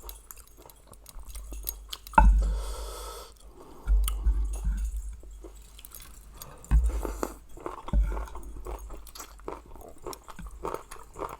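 Close-up chewing and wet mouth clicks of someone eating pounded seafood salad, with a few dull low thumps.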